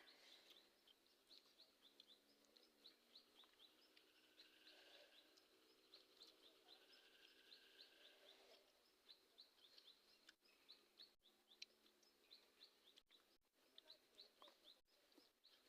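Near silence, with faint birds chirping: many short, quick chirps repeating throughout. A faint steady hum is under them until about eight and a half seconds in.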